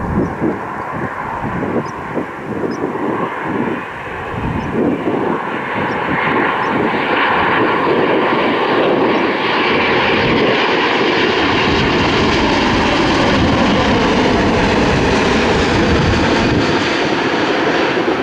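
Airliner engines growing louder over a few seconds, then running loud and steady with a whine, as the aircraft passes close by. Gusts of wind buffet the microphone in the first few seconds.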